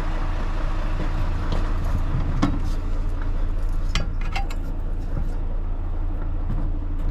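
Fire tanker's engine running with a steady low hum, while a few sharp metallic clinks and knocks come from someone climbing the metal rear ladder onto the tread-plate roof, the clearest about two and a half and four seconds in.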